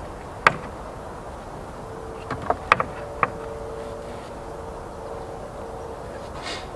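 Scattered knocks and clicks of wooden pallet boards being handled: one sharp knock about half a second in, then a quick cluster of knocks around two to three seconds in, over a faint steady hum.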